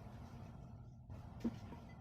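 Faint steady low hum with a soft single tap about one and a half seconds in, from hands handling lumpia wrappers on a work surface.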